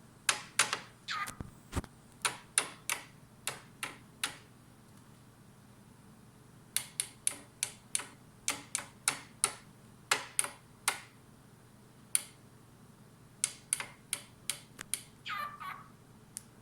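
Cockatiel tapping its beak against a mirror: sharp clicks in irregular runs, with a pause of about two seconds in the middle. Two brief falling squeaks, one near the start and one near the end.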